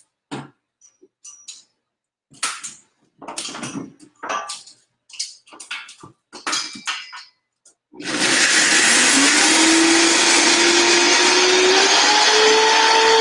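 A few seconds of clicks and knocks, then a countertop blender switches on about eight seconds in and runs loud and steady. Its motor pitch climbs as it speeds up, blending nuts, seeds and garlic with water and vinegar into a dressing.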